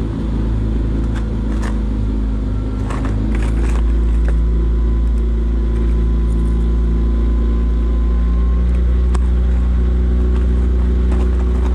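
Boat motor running steadily under way, a little louder from about four seconds in, with a few light knocks early on.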